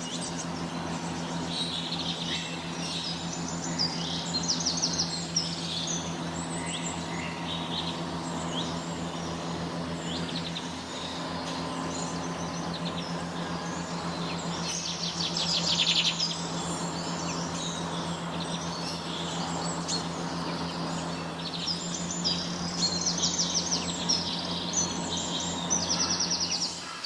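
Many birds in a bird house chirping and calling at once, with quick runs of high notes that swell a few times, over a steady low mechanical hum.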